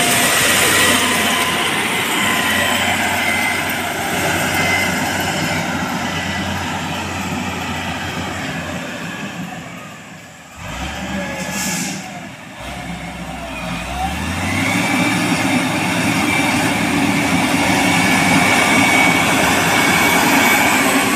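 MG330 motor grader's diesel engine running under load as its blade scrapes and pushes loose soil, with a steady high whine over the rumble. It drops quieter about halfway through, then grows louder again as the engine note rises.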